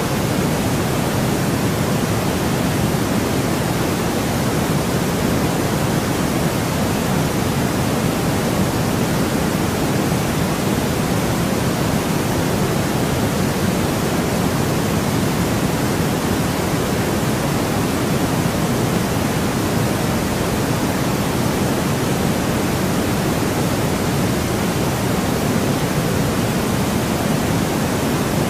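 Steady, unchanging white noise, a continuous even hiss weighted toward the lower pitches, like pink noise.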